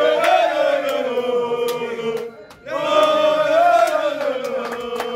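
Men's voices chanting together in two long drawn-out phrases, each held on a slowly falling note, with sharp claps or bangs scattered through them.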